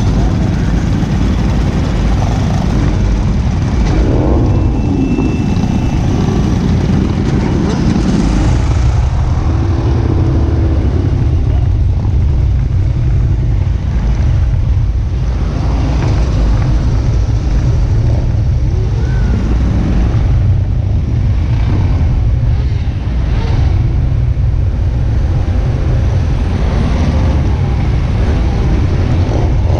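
Many motorcycle engines running together as a long procession of motorcycles rides past, a steady low rumble.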